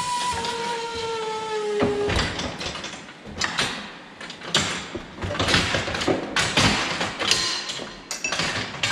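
Metal hoof-trimming chute being worked: a steady whine sinks slightly in pitch and stops about two seconds in, followed by a rapid series of sharp metal knocks and clanks from the chute's frame and fittings.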